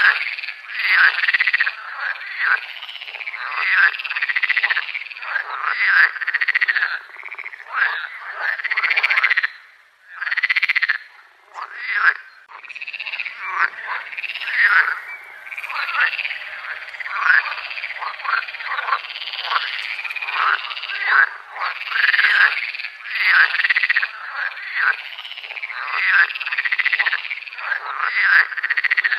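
A chorus of many frogs calling over one another, a dense run of short calls that each rise and fall in pitch. The chorus briefly thins about ten seconds in, then fills back up.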